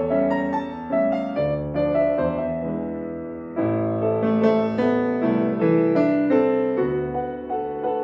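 Grand piano played four hands: a melody over chords that dies away a little, then fuller, louder chords come in about three and a half seconds in.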